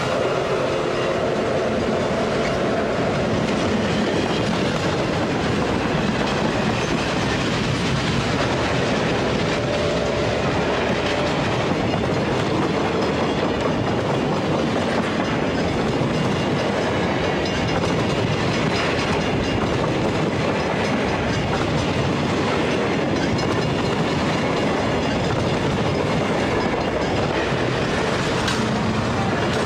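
A long train passing close by at speed: two EMD F7 diesel units followed by a string of flatcars and passenger cars, steel wheels on rail making a steady, loud rush with clicking over the rail joints.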